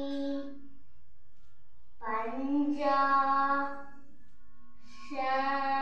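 A child's voice singing long held notes: one fades out just after the start, another comes in about two seconds in, and a third near the end, each held for about a second and a half with quiet between.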